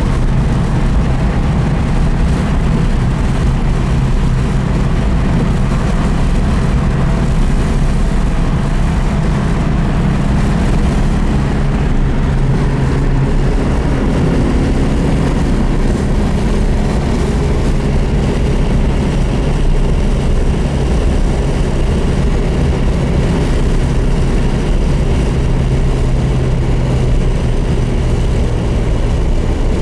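1965 Porsche 356C 1600 SC's air-cooled flat-four engine running steadily at freeway cruising speed, heard from inside the cabin together with road and wind noise.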